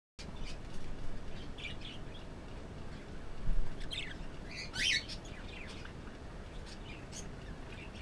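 Budgerigar chirping in short, scattered high calls, the loudest cluster about five seconds in. A brief low thump about three and a half seconds in.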